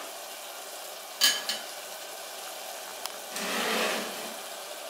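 Vegetables and masala with a little water simmering and sizzling in an open aluminium pressure cooker on a gas flame, a steady hiss. There is a sharp clink about a second in, and the hiss swells louder for a moment about three and a half seconds in.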